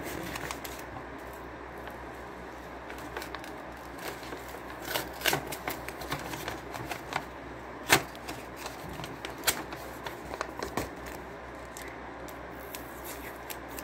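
Paper and tape being handled: scattered crinkles and small clicks as a taped envelope is worked open, with a couple of sharper snaps in the middle, over a steady hiss.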